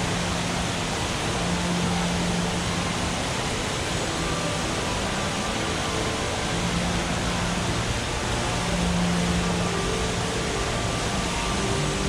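Steady rushing hiss of water streams falling from a computerized ceiling water fountain. Faint low tones come and go underneath.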